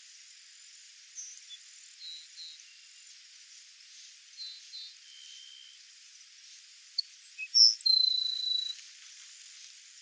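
Grassland sparrow singing once, about seven seconds in: a few short high notes, then a held high trill lasting under a second and falling slightly in pitch. Before it, faint scattered high chirps over a steady high insect hiss.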